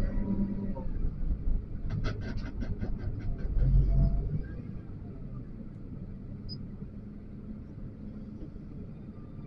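XCMG LW500HV wheel loader's diesel engine running under load with a deep rumble, easing down to a lower, steadier running about four and a half seconds in. A quick rattle of about ten sharp clicks comes about two seconds in.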